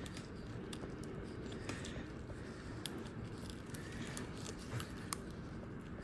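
Steel dental elevator working a lower wisdom tooth loose before extraction, giving scattered small sharp clicks and scrapes against the tooth over a steady low hum. The sharpest click comes about five seconds in.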